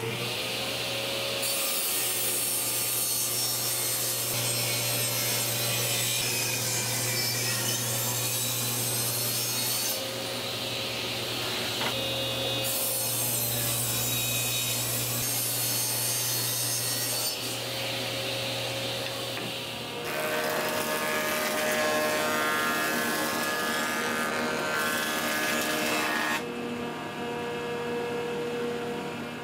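Table saw running and ripping rough hardwood boards, its cutting noise rising and falling with each pass over a steady motor hum. About twenty seconds in it gives way to the homemade jointer running and planing one face of a board flat.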